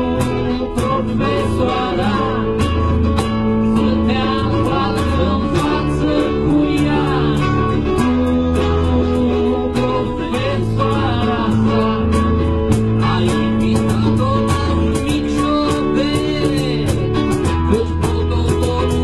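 Live acoustic guitar strumming with group singing and a steady percussion beat.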